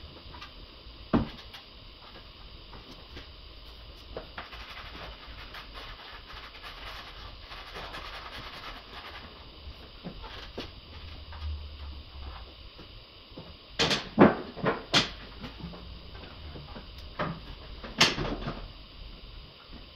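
Scattered clicks and knocks of hand work on engine-bay parts, with a cluster of sharper knocks about two-thirds through and another near the end.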